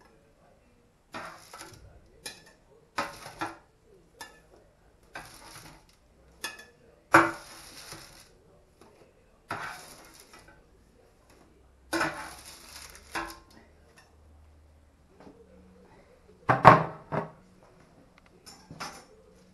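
Slotted metal spatula scraping under baked puff-pastry pies on a parchment-lined metal baking tray, about six scrapes a second or two apart, as the pies are lifted onto a serving plate. About three-quarters of the way through comes a sharp clatter, the loudest sound, as the plate is set down on the counter.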